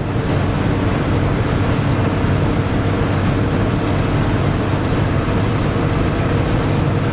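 Steady drone of a vehicle engine with road noise, an even low hum under a broad rush.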